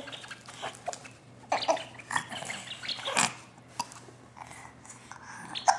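Hiccups: a few short, sharp catches at uneven gaps, the strongest about three seconds in and near the end.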